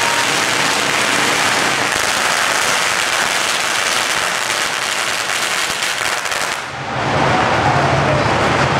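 A long string of firecrackers going off in a rapid, unbroken crackle that stops suddenly about seven seconds in, after which a lower, steadier din takes over.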